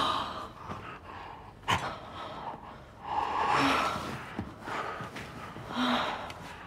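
Heavy breathing and gasps during lovemaking, with a few brief soft moans.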